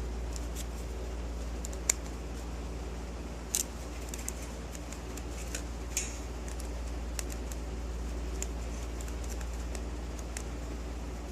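Small metal clicks and taps from a stapler's parts being pressed and worked by hand as a spring-loaded piece is pushed toward its slots, a few sharp ticks scattered irregularly over a steady low hum.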